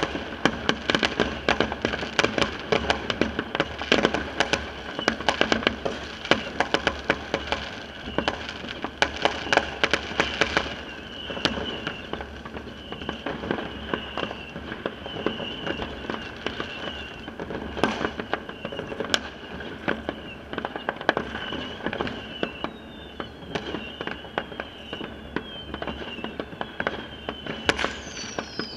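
Many fireworks going off around a neighbourhood: a dense, continuous stream of bangs and crackling for about ten seconds, then sparser bangs. Near the end there is a run of falling whistles.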